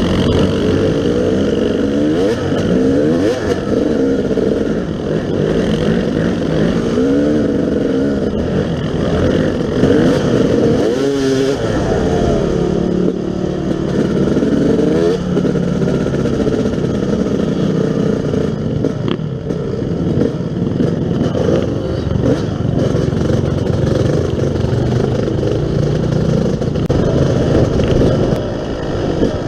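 Yamaha YZ250 dirt bike's two-stroke engine under way off-road, revving up and dropping back over and over as the rider works the throttle and shifts gear, with some clatter from the bike.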